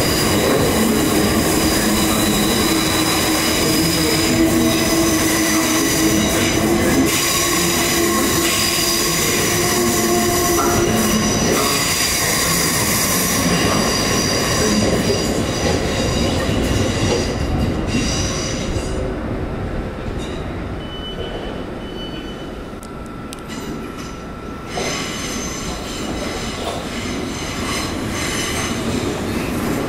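Electric multiple-unit train running through on steel rails, its wheels squealing with several high steady tones over the rumble. The squeal fades and the train noise drops about two-thirds of the way through, then the running noise builds again near the end.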